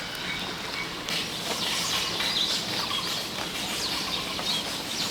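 Many small birds chirping and chattering together in a quick, overlapping jumble of high calls, starting about a second in.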